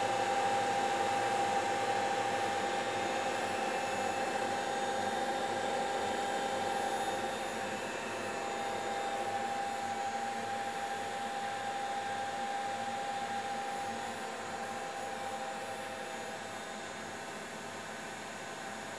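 Cooling fans of powered Siemens Simodrive 611 drive modules running: a steady whir with a high whine that stops about two-thirds of the way through, the whole sound slowly growing fainter.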